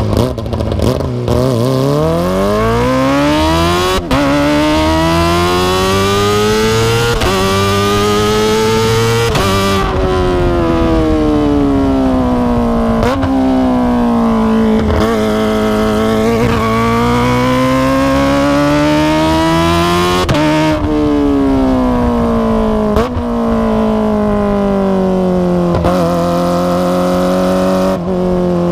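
Kawasaki ZX-25R's 250 cc inline-four through an Akrapovic exhaust, ridden through the gears. The engine note climbs steadily and drops sharply at each upshift, about every two to three seconds, with stretches where the revs fall away as the bike slows, then climb again.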